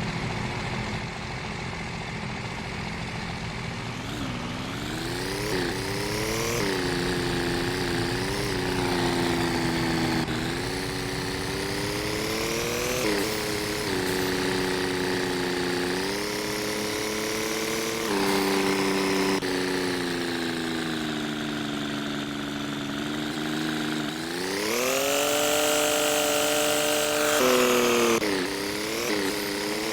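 A vehicle engine running under way, its pitch climbing and levelling off, then dropping suddenly again and again as the revs change with the gears, with one long high rev near the end before a sharp drop.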